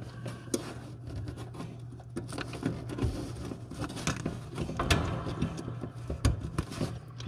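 Wire terminals being handled and pushed onto the terminals of a replacement electric-heat sequencer: irregular small clicks, taps and rustles of wire, over a steady low hum.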